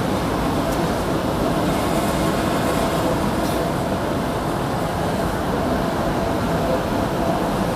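Steady city street ambience: an even, low rumble of traffic and crowd noise with no distinct events.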